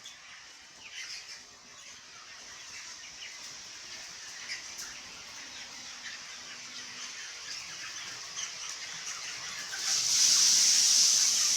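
A flock of broiler chickens peeping and squawking: many short, high calls that grow denser over time. Near the end they give way to a loud, steady hiss lasting about a second and a half.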